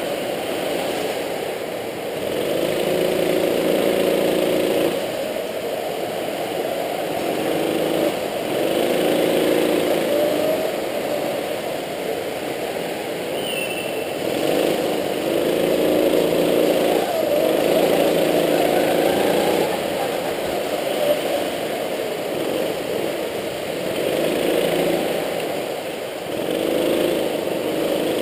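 Go-kart engine heard from on board, its note rising repeatedly as it accelerates and dropping back as the throttle is lifted for the corners.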